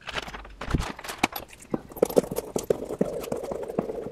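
A large sheet of thick adhesive-backed aluminium foil crinkling and crackling as it is handled and pressed down, with a hand roller run over it in the second half. The crackles are sharp and irregular, growing denser and more continuous toward the end.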